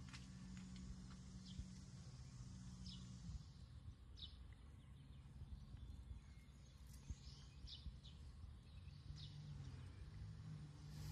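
Near silence: faint outdoor ambience with a low steady hum that drops out about three seconds in, and short, faint high chirps every second or so, like bird calls.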